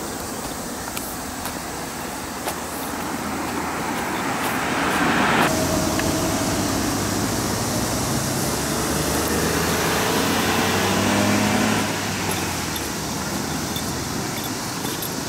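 Road traffic going by on a roadside: a vehicle's approach swells and cuts off suddenly about five seconds in, then another vehicle passes with its engine pitch falling away, fading after about twelve seconds.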